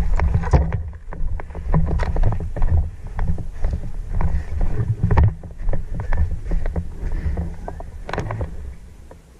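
Heavy wind and handling rumble on a body-worn camera's microphone, with irregular knocks and clicks of footsteps and gear as an airsoft player moves on foot.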